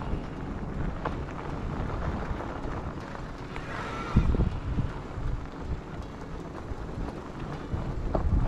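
Electric bike rolling over a rough dirt and gravel track, a steady rumble of tyre noise and wind on the microphone. A few heavier jolts from bumps come about four seconds in.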